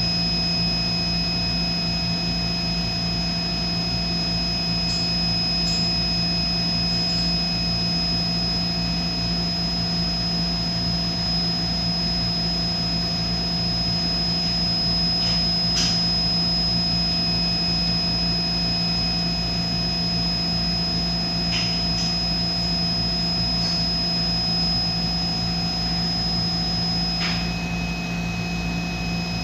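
A machine running steadily: an even drone with a low hum and several constant high whining tones. A few light clicks come now and then.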